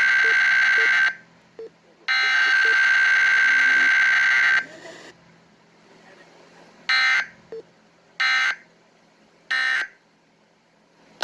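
Emergency Alert System SAME digital header tones: screechy bursts of data, one ending about a second in and a second one lasting about two and a half seconds. Three short bursts follow, about a second and a quarter apart, typical of the end-of-message code.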